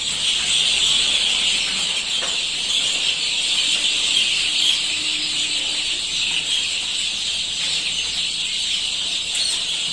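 Chicks peeping continuously in a dense, high-pitched chorus.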